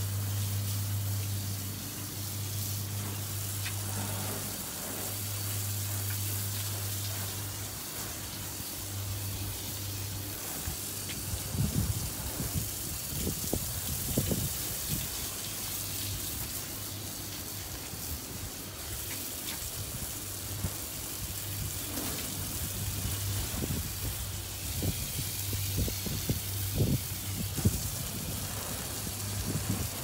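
Garden hose spray nozzle washing water over freshly sawn sycamore slabs, a steady hiss of spray hitting wet wood. A low hum runs underneath, and a few dull knocks come in the second half.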